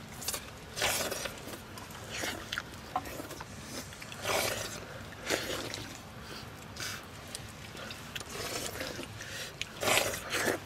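People eating rice by hand from metal plates: irregular short scrapes and chewing sounds, a second or two apart.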